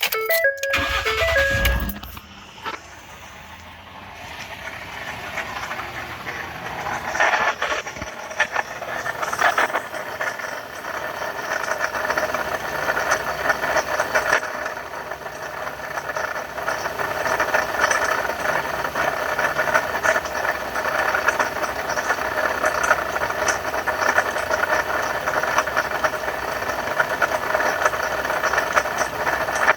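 Ford F-150's 3.7 L V6 running at idle with a steady rattling from the belt-driven pulleys, which the owner attributes to a bad water pump.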